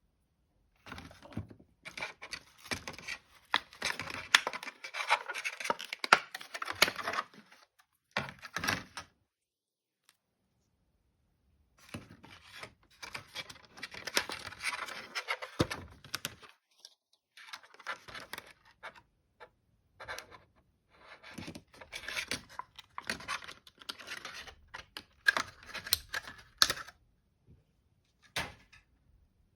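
Doll packaging being handled and opened by hand: crinkling, tearing and rustling of cardboard and plastic, with many small clicks and taps, in several bursts separated by short pauses.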